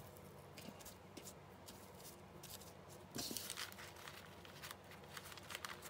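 Paper being handled: quiet rustling and small crinkles, with a louder rustle about three seconds in.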